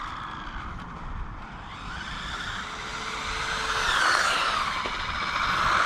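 Small 1/16-scale brushless RC cars driving on tarmac, their motors whining. The pitch rises and falls with the throttle, and the sound is loudest about four seconds in.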